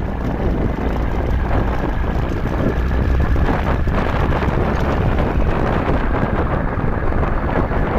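Steady wind rushing over the microphone of a moving motorcycle, with the bike's running and road noise beneath it.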